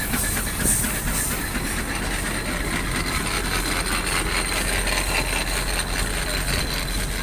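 An old road-construction machine running steadily, a continuous mechanical clatter with a hiss over it.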